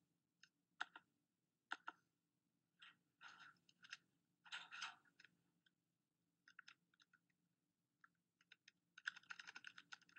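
Faint computer keyboard typing: short scattered keystrokes, then a quick dense run of them near the end.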